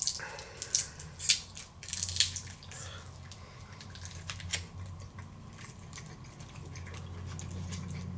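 Plastic candy wrapper crinkling as a small caramel is unwrapped: a cluster of sharp crackles over the first two seconds or so, then only scattered faint clicks.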